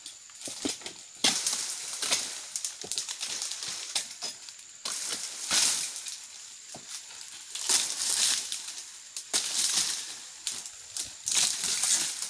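A long-handled blade striking and cutting the frond bases of an oil palm, with sharp knocks and repeated bursts of crunching and rustling as dry fronds and stalks split and come down.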